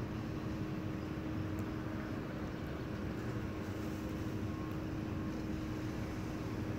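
Fire engine idling down the street: a steady engine drone with a constant low hum and no change in pitch.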